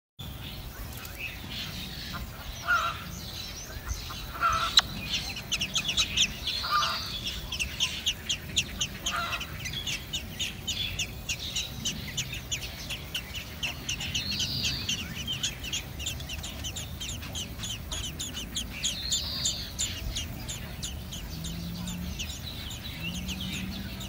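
Blackbird nestlings begging for food: a rapid run of high, thin cheeps, several a second, strongest through the middle and thinning near the end. A few lower, short calls come in the first ten seconds.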